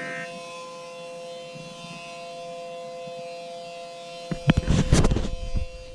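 Emergency Alert System-style attention tone: several steady held tones sounding together. About four seconds in, a loud crackling burst of noise breaks in over it.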